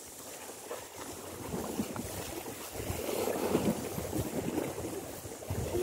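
Wind buffeting the microphone and the sea washing against the rock shore, with scattered scuffs and knocks from footsteps and handling on the rock; the noise swells about halfway through.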